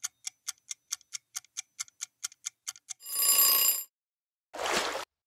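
Countdown-timer sound effect: quick clock ticking, about six ticks a second, for three seconds. Then a ringing alarm-bell tone for about a second signals that time is up. A short whoosh follows near the end.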